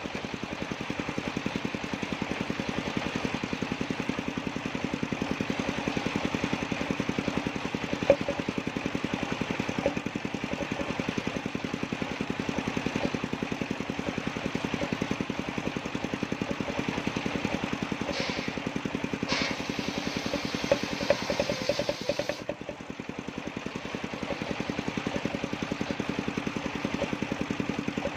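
Engine-driven circular sawmill running steadily with an even pulsing beat while its large blade cuts a jackfruit log into boards, with a few sharp knocks along the way.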